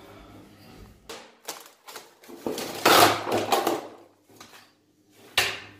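Indoor clatter: a few separate knocks, then a longer rattling, scraping burst about halfway through, and one sharp knock near the end.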